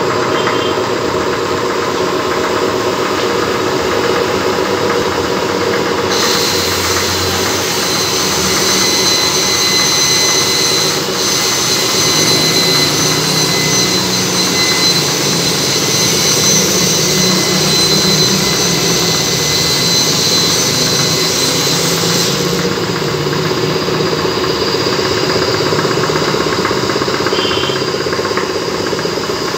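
A machine running steadily with a continuous drone. A high, steady whine joins it from about six seconds in and cuts off at about twenty-two seconds.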